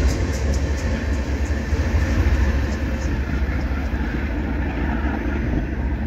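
BNSF freight train running past on the main line: a steady low rumble and rushing noise, with wheels clicking rhythmically over rail joints for the first couple of seconds before the clicking fades out.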